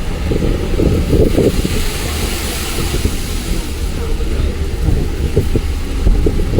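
Bus running on the road: a steady low rumble with knocks and rattles, and a hiss that swells about two seconds in.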